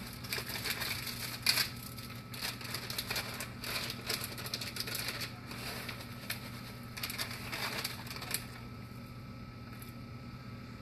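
A bag of mini chocolate chips crinkles and rustles in the hands as it is opened and handled, in irregular bursts that stop a little over eight seconds in. A steady low hum runs underneath.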